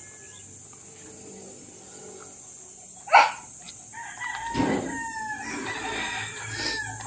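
A rooster crowing: one long crow of about three seconds, starting about four seconds in, after a brief loud noise about three seconds in.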